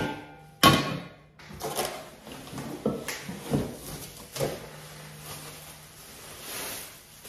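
Bubble wrap and plastic packaging crinkling and rustling as a stainless steel pan is unwrapped, in irregular bursts. A single sharp knock comes just under a second in.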